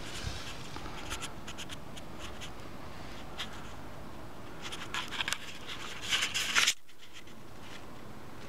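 Scratching and rubbing handling noise on the camera's microphone with scattered clicks, louder in a burst past the middle that cuts off abruptly.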